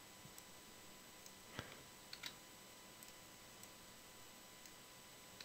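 Faint computer keyboard and mouse clicks over near-silent room tone: one click about one and a half seconds in, then two close together just after two seconds.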